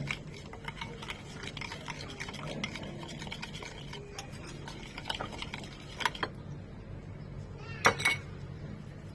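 A spoon or utensil stirring and scraping in a bowl, with many small clicks, a couple of louder knocks midway, and a sharp ringing clink against the dish near the end.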